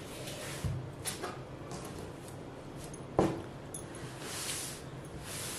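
Hands handling and smoothing a net-and-satin frock on a table: soft swishing and rustling of the fabric, with a light knock a little over three seconds in.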